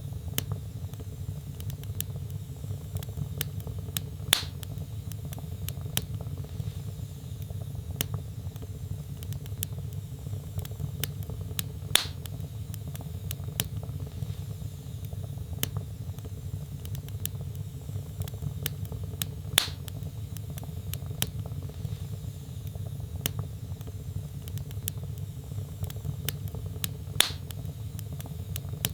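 Log fire burning in a fireplace: a steady low rumble of flames with constant small crackles and four louder, sharper pops spaced about seven and a half seconds apart.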